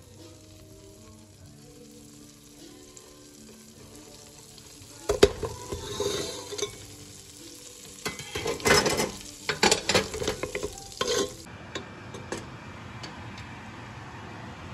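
Garlic frying in melted butter in a pot, stirred with a wooden spatula: quiet at first, then loud sizzling and scraping bursts about five seconds in and again from about eight to eleven seconds, giving way to a steady hiss near the end.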